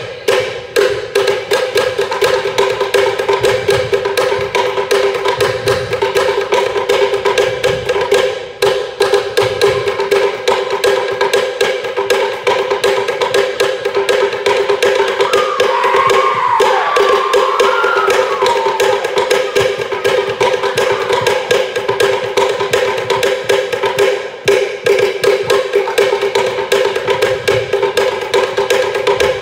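Fast, driving percussion music of rapid wooden-drum strikes over a steady held tone, with a short wavering high sound about halfway through.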